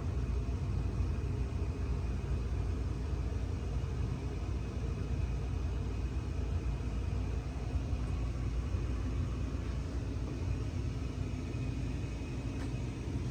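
Sportscast Coca-Cola ceiling fan running on low speed in updraft: a steady low rumble of moving air and motor.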